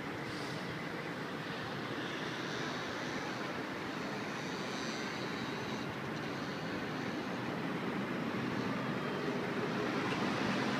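Steady city street traffic noise from the busy boulevard below, a continuous mix of cars and buses heard from several floors up, swelling slightly near the end.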